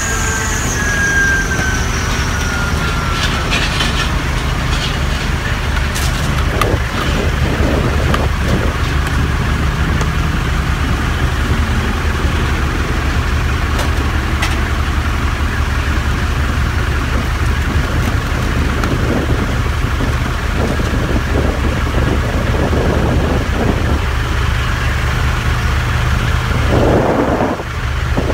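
Lavatory service truck's engine running steadily, a low continuous hum. A whine falls in pitch over the first few seconds, and a few short knocks come through.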